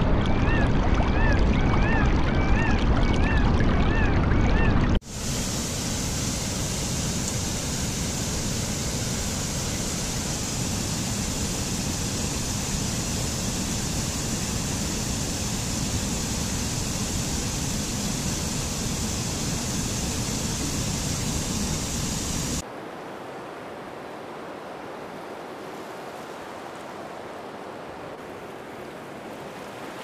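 Rushing water of a mountain stream cascading over rocks, steady and full. A bird chirps over and over during the first five seconds. About five seconds in, the sound cuts to a brighter, louder rush. Near the 23-second mark it cuts again to a fainter, thinner hiss.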